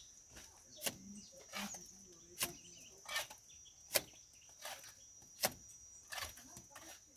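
Plastering tool working mortar on a wall: short scraping strokes in an even rhythm, about one every three-quarters of a second.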